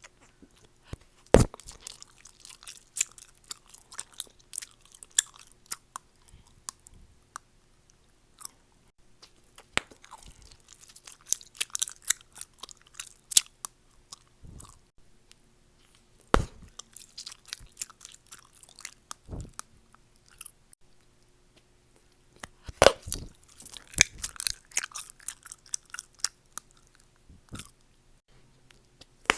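Gum chewing close to the microphone: wet, irregular clicking and crackling mouth sounds, busier in some stretches than others, with a few loud sharp snaps.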